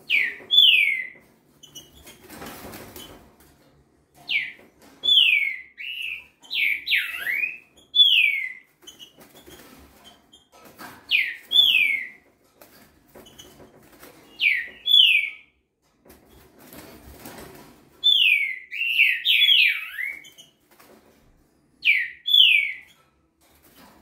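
Young green-winged saltator (trinca-ferro) singing short phrases of two or three clear whistled notes, each falling in pitch, a phrase every few seconds. Twice a brief rustle comes between phrases.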